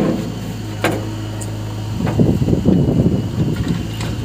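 Diesel engines of a JCB 3DX backhoe loader and tractors running with a steady drone. There is a sharp knock about a second in and rougher clattering noise between about two and three and a half seconds in.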